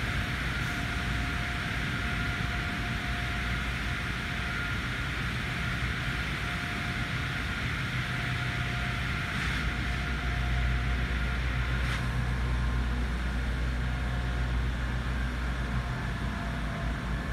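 Steady outdoor background noise: a low rumble with a hiss above it, growing a little louder about ten seconds in.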